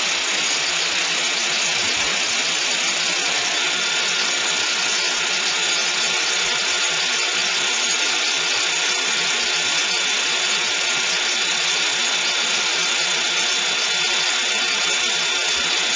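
Steady rushing hiss of a dilute-phase pneumatic conveying line: high-velocity air carrying powder or granules through the transport pipe. A faint steady whistle joins a few seconds in.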